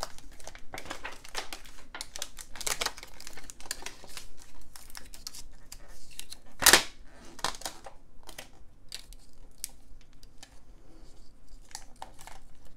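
Clear adhesive tape being pressed, smoothed and peeled against plastic battery cases, giving irregular crinkling and tearing sounds, with one louder sharp crackle about halfway through.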